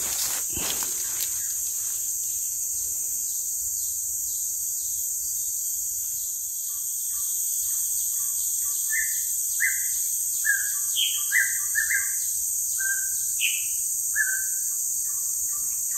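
Tropical forest insects keep up a steady high-pitched buzz. About halfway through, a bird calls a quick run of short whistled notes for several seconds, many of them sliding down in pitch.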